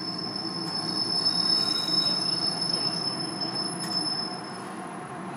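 Interior of a 735 series electric train slowing: a steady high squeal over the rumble of the running gear, dying away about four seconds in.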